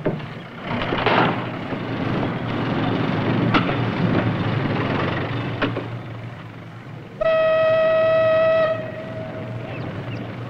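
Steady rumbling noise with a couple of sharp clicks. About seven seconds in, one steady whistle blast lasts about a second and a half, then fades.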